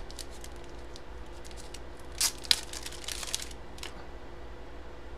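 Plastic and cardboard coin packaging crinkling and rustling in the hands as a graded coin slab is unwrapped, in short clusters about two seconds in and again around three seconds, over a steady low hum.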